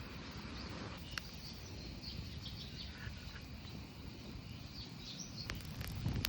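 Forest birds chirping over a low steady rumble, with a few sharp campfire crackles near the end.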